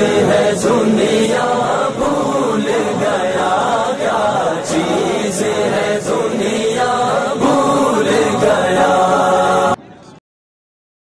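Urdu devotional naat chanted by a voice over a choir-like backing, with faint regular ticks. It cuts off suddenly about ten seconds in.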